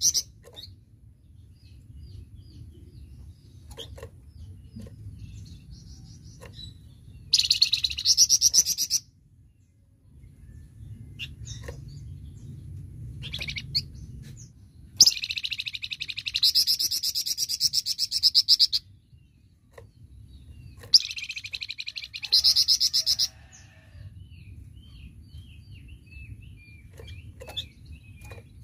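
A flamboyan songbird singing in loud, rapid trilled bursts, the 'tembakan' phrases prized by Indonesian bird-keepers: three outbursts about two to four seconds long, starting about seven, fifteen and twenty-one seconds in. Soft short chirps come between them over a low steady rumble.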